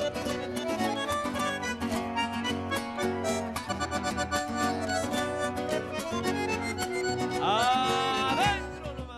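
Background music led by accordion over a steady rhythm, with a few sliding notes near the end as it fades out.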